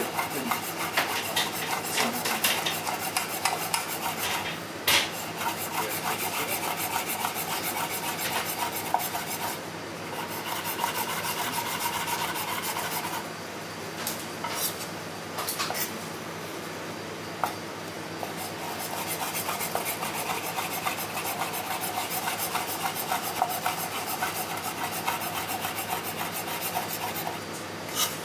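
Chef's knife rapidly chopping raw meat on a bamboo cutting board, mincing it finely: long runs of fast knocks on the wood, with a break of a few seconds in the middle broken by a few single knocks.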